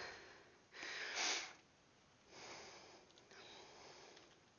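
A woman breathing hard into a headset microphone, winded right after an exercise interval: a few noisy breaths, the loudest about a second in.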